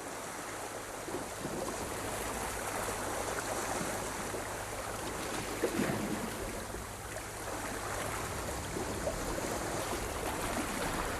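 Sea waves washing on a shore: a steady rushing that swells and eases gently.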